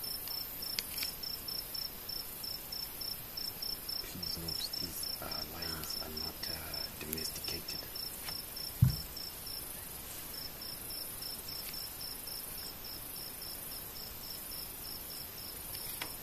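Night insects chirping in a steady series of rapid, even, high-pitched pulses that break off for about a second midway. A single loud low thump comes about nine seconds in, and faint low voices murmur briefly before it.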